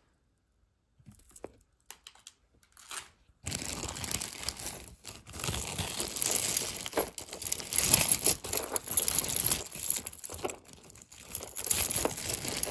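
Clear plastic bag crinkling continuously as it is handled and rummaged in, starting about three and a half seconds in after a few faint clicks.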